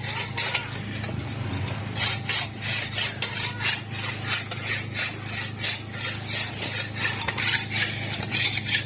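Hand scraping on a metal bicycle part in quick, even back-and-forth strokes, about two to three a second, becoming steady about two seconds in.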